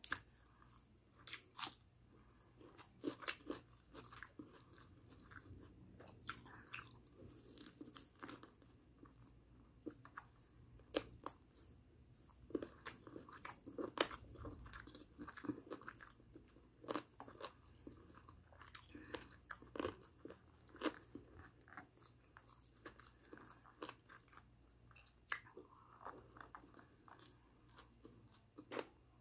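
Close-up eating sounds of a person chewing and biting barbecue chicken and rice by hand: soft chewing with crisp crunches and sharp wet mouth clicks at irregular intervals.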